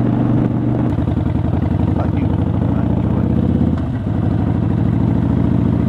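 Harley-Davidson Seventy-Two Sportster's air-cooled V-twin running under way, heard through a helmet-mounted microphone. The engine note changes about a second in and dips briefly about four seconds in.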